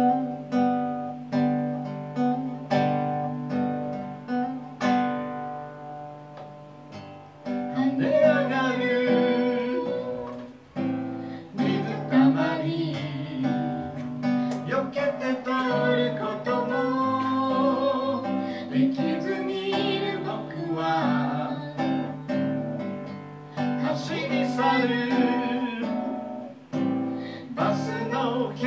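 Acoustic guitar strummed alone for about seven seconds, then a man's singing voice comes in over the guitar and carries on.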